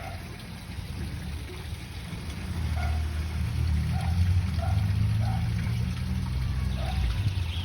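Water trickling at a koi pond under a strong low rumble of wind on the microphone, which swells in the middle. Short low calls come every second or so.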